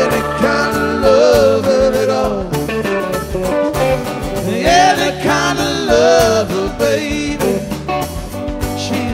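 Live rock band playing: electric guitar, bass guitar and drums under a wavering, bending lead melody line.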